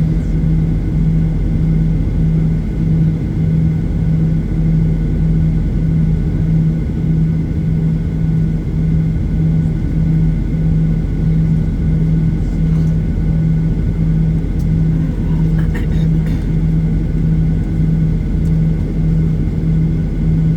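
Boeing 737-800's CFM56-7B turbofan engines idling, heard from inside the passenger cabin: a steady rumble with a low hum that pulses about twice a second, with faint steady whines above it.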